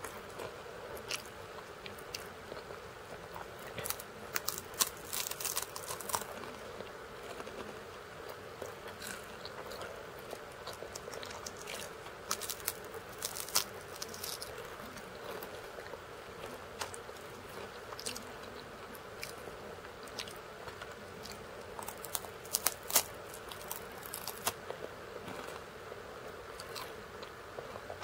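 Close-miked chewing and crunching of crackers: three main clusters of sharp, crisp crunches spaced several seconds apart, with quieter chewing between them, over a steady background hiss.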